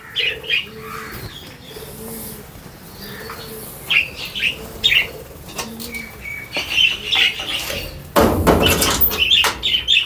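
Caged parrots chirping and calling, with a low arched cooing call repeated steadily underneath. A loud rustling burst, like wings flapping, comes about eight seconds in.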